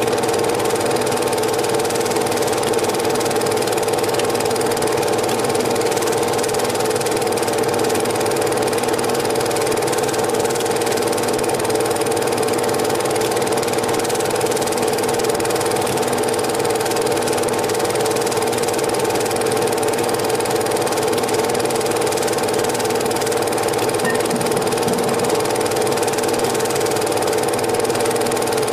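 Home-movie cine film projector running steadily: a constant mechanical whirr with no change in pitch or level.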